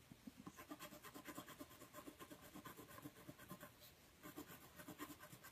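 Watercolour pencil scratching on paper in rapid, short colouring strokes, faint, with a brief pause about four seconds in.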